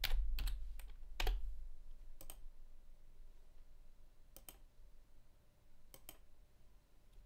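Keystrokes on a computer keyboard in the first second and a half, then a few isolated clicks of a computer mouse, each a quick double click, with a faint low hum under the typing.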